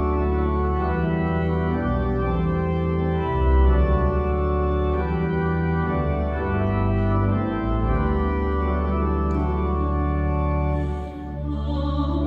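Church organ playing slow, sustained chords with a deep bass line. About 11 s in it dips briefly, and a singing voice comes in near the end.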